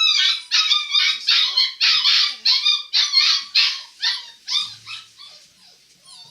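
Puppy crying in a rapid series of high-pitched yelps and whines, about two or three a second, growing fainter and sparser over the last second or so.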